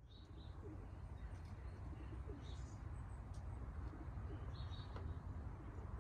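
Birds chirping briefly a few times over a low steady rumble, fading in over the first second.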